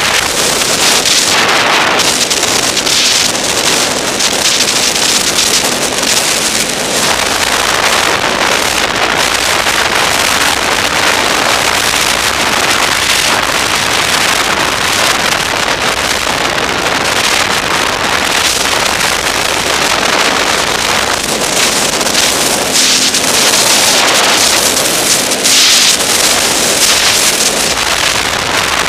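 Snowmobile running at speed along a groomed trail: a steady engine drone mixed with heavy wind rushing over the microphone.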